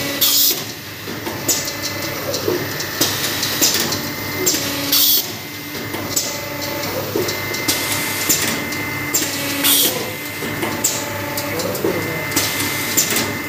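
An automatic paper plate making machine running through its pressing cycle, with a short sharp hiss about every two and a half seconds over a steady mechanical hum.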